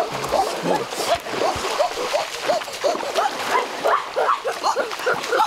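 Short, rapid yelping animal calls, several a second, over a steady hiss.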